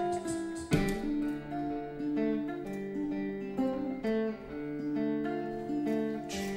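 Acoustic guitar played solo: a strummed chord about a second in, then a run of picked single notes that ring over one another.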